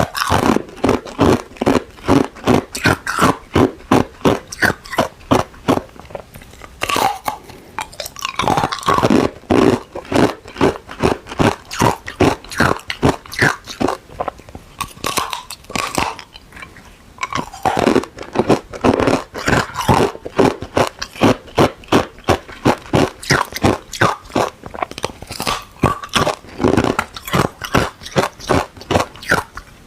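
Ice being bitten and chewed close to the microphone: rapid, loud, crisp crunches in quick runs, with brief pauses between mouthfuls.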